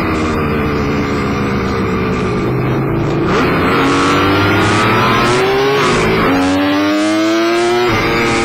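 Kawasaki KH500's two-stroke triple engine heard on board while riding. Its note sags slightly, then from about three seconds in climbs in pitch several times under acceleration. The longest climb ends in a sudden drop near the end, as at an upshift.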